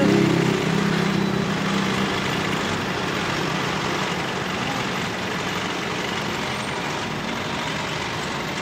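Street traffic: a heavy vehicle's engine hums low for the first couple of seconds and fades, over a steady hiss of passing traffic.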